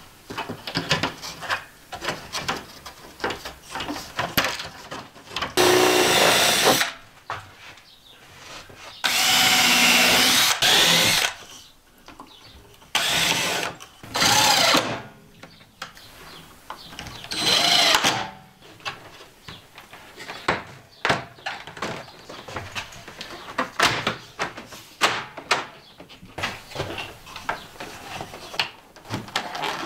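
Cordless drill running in four short bursts on screws at the RV refrigerator's frame, its motor pitch rising and falling within each burst. Knocks and clicks of handling come between the bursts.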